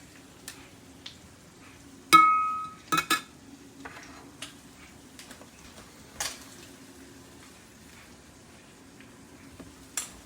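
Kitchenware being handled: a sharp ringing clink of metal or glass about two seconds in, then two quick knocks and a few lighter clicks, over a faint steady hum.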